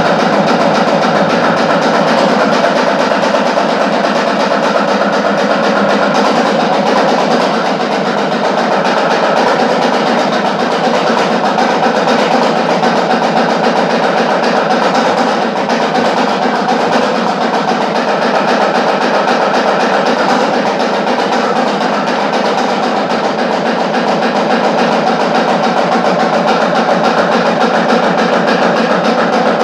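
Devotional percussion music: a fast, unbroken drum roll with other percussion layered over it, played at a steady level.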